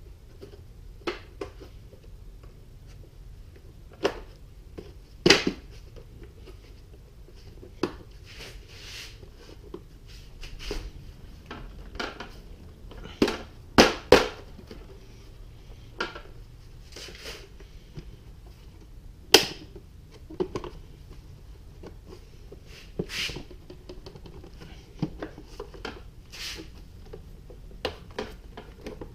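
Scattered clicks, taps and knocks of plastic body panels and fasteners on a KTM Duke 390 being handled as its side panel is taken off, with a few louder knocks among them.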